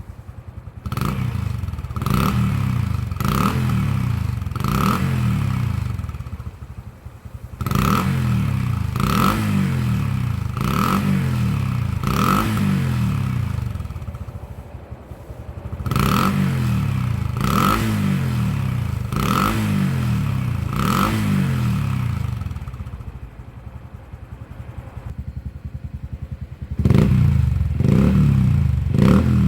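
Honda Dax125's single-cylinder four-stroke engine running through an OUTEX aftermarket muffler with a straight-through standard silencer. It is revved in repeated throttle blips in several groups, dropping back to idle between them and for a few seconds near the end.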